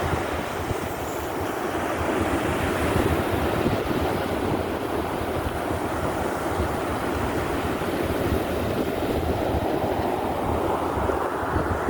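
Stormy sea: waves breaking and churning in a continuous low rumbling rush, with wind buffeting the microphone. The surge swells a few seconds in and again near the end.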